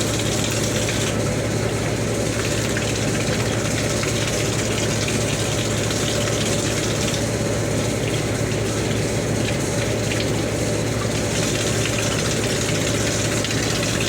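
Steady rush of water running from a tap, over a constant low hum.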